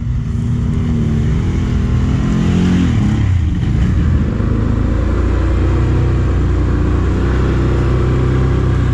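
ATV engine revving under load. The revs climb for about three seconds, drop, then hold steady.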